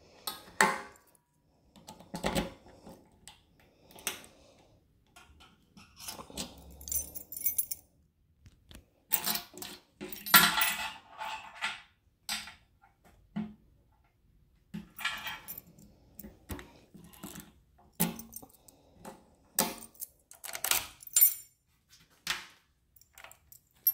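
Key ring jangling and metal clicking and clinking as the locking fuel-tank cap on a Kawasaki Ninja 500R is unlocked with the key, flipped open and snapped shut, in a scattered run of short rattles with the busiest stretch around the middle.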